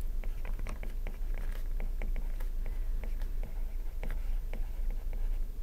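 A stylus tapping and scratching on a tablet screen as words are handwritten: a run of small, irregular clicks and light scrapes over a faint steady hum.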